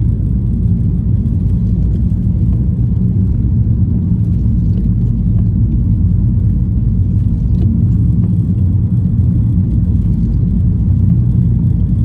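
Car driving at steady speed, heard from inside the cabin: a steady low rumble of engine and tyre noise.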